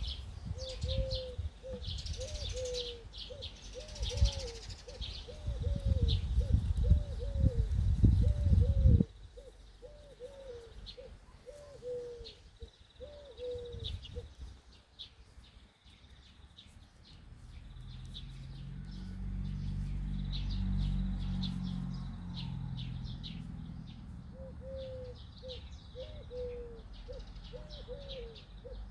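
A dove cooing in a long run of short, repeated calls that pause in the middle and resume near the end, with small birds chirping high above. A loud low rumble, the loudest sound, stops suddenly about nine seconds in, and later a low hum swells and fades.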